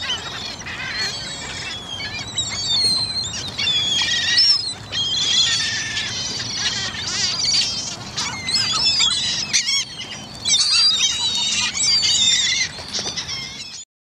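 A flock of gulls feeding on dead fish, calling continuously with many short, high squawks and cries overlapping one another, with louder bursts of calling at times. It cuts off suddenly just before the end.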